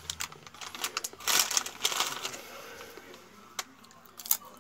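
Foil potato-chip packet crinkling and rustling as it is handled, loudest in the middle, then a couple of sharp crunching bites near the end.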